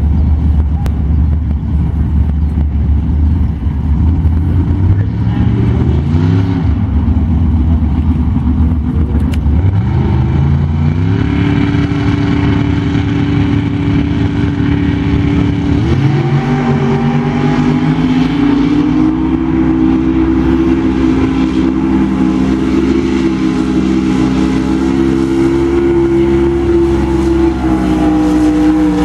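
Heavy engines running loudly at a swamp buggy race, with a diesel wheel loader moving close by. The engine pitch climbs in several steps and then holds steady at a higher speed. Near the end a swamp buggy launches through the water.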